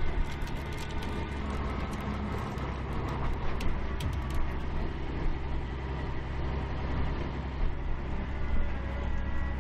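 A shrimp cutter's engine running steadily under way, a low drone, with water rushing along the hull. A few light clicks or rattles come in the first four seconds.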